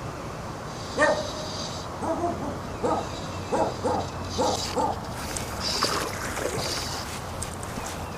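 A string of short animal calls, about half a dozen spread over a few seconds, with bursts of high-pitched chirping in between.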